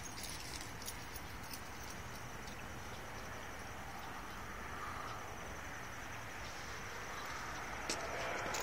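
Steady outdoor background hiss, with a few faint ticks early on and a sharper click near the end.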